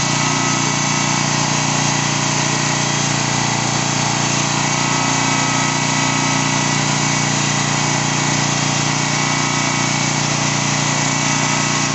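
Electric hospital bed's actuator motor running with a steady, even hum as it moves the hinged backrest section of the deck.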